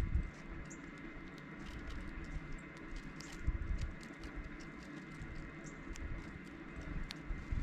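Dark-eyed juncos giving scattered short, high chip calls and ticks, over a low rumble with a soft thump about three and a half seconds in.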